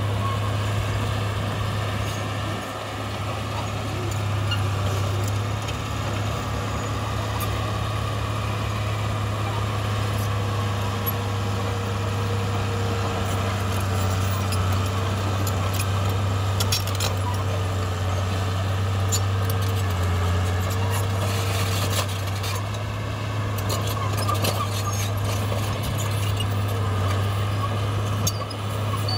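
Heavy diesel earthmoving machinery running steadily at a constant engine note, with scattered metallic clanks and rattles through the middle and later part.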